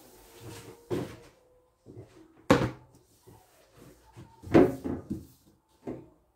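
Several sharp knocks and clunks of things being handled and set down on a stainless steel sink and its roll-up metal dish rack. The loudest comes about two and a half seconds in, with a small cluster near the end.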